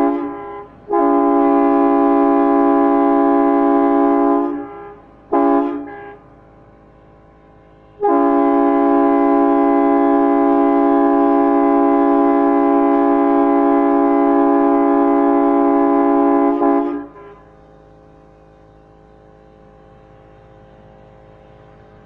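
Air-powered train horn fed from a home air compressor, sounding a multi-note chord in blasts: the end of one blast, a long blast of about three and a half seconds, a short toot, then a long blast of nearly nine seconds. The long-long-short-long sequence is the railroad grade-crossing signal.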